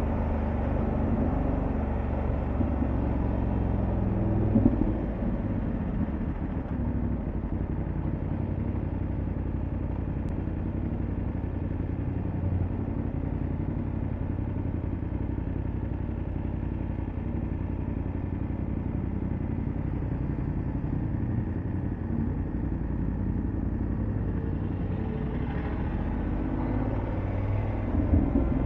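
Motorcycle engine running steadily on the move, its revs climbing near the end.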